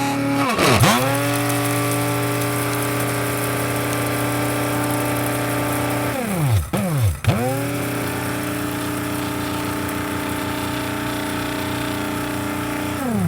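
Electric coffee grinder motor running with a steady whirring hum. Its pitch swoops down and straight back up once about a second in and twice in quick succession around the middle.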